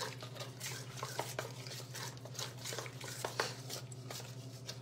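A fork stirring a thick flour-and-yogurt batter in a stainless steel mixing bowl: irregular clinks and scrapes of metal against the bowl.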